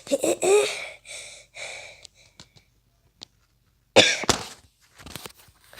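A person coughing: several breathy bursts in the first two seconds, a pause, then one sharp cough about four seconds in, followed by a few light clicks.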